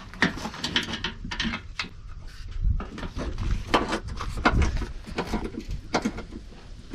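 Irregular clicks and knocks of hand tools on bolts and sheet metal as a fender bolt is tightened under the hood.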